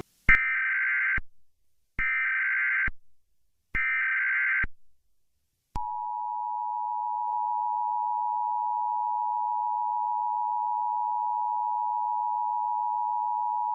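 Emergency Alert System header: three short bursts of SAME digital data tones, each about a second long. About six seconds in comes the two-tone EAS attention signal (853 and 960 Hz), held steadily.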